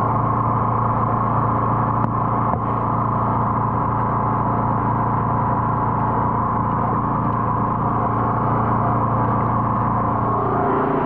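Engine of a high-pressure drain jetter running steadily at one constant speed.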